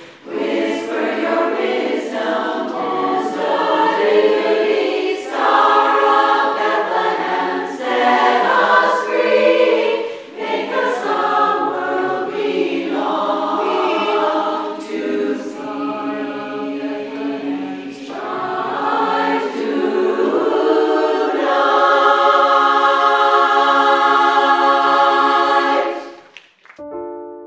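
Women's chorus singing a cappella in close harmony, ending on a long held chord that is cut off near the end.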